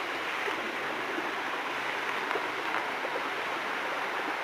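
Mountain stream cascading over rocks like a waterfall: a steady rush of flowing water with small splashes through it.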